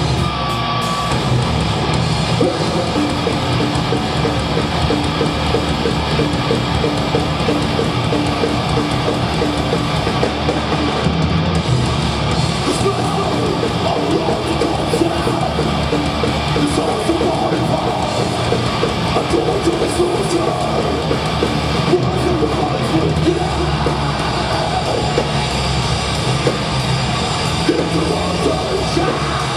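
Death metal band playing live: dense, loud distorted electric guitars and drums, heard through a live concert recording.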